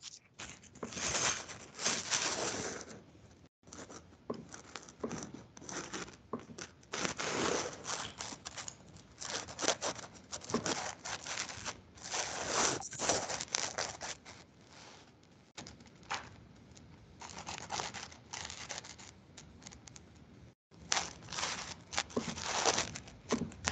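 Paper rustling and crinkling in irregular bursts with short pauses, picked up by an open microphone on a video call.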